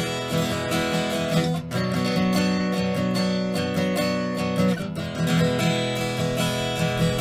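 Background music: strummed acoustic guitar with a steady rhythm, changing chords twice.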